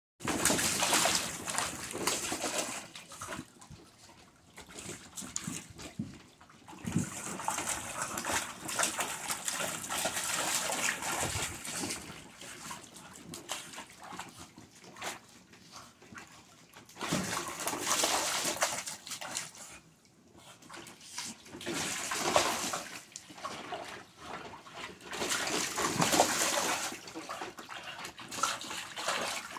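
Water splashing and sloshing in a shallow plastic kiddie pool as a dog wades and paws at a ball, in several bouts of splashing with short quieter lulls between.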